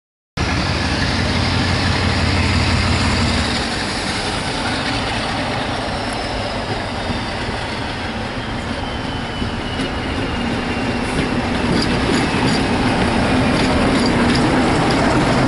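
Diesel locomotive hauling a train of coaches past at close range, its engine running under power, with a high whine slowly falling in pitch. The noise grows louder as the train nears, with a few clicks of wheels over the rail joints in the later seconds.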